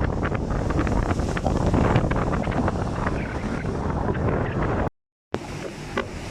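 Strong wind buffeting the microphone, with the noise of a rough sea beneath it. The sound cuts out abruptly for about half a second near the end and comes back quieter.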